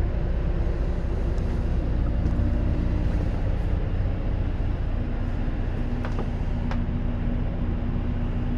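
An RV's onboard generator running steadily, a low hum with a steady tone in it, heard from inside the coach. Two faint clicks about six seconds in.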